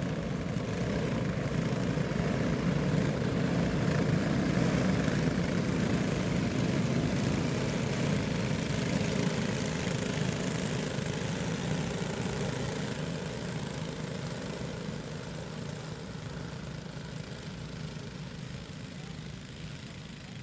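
A pack of junior dirt-track racing go-karts, their small engines running together in a steady drone that fades slowly over the second half.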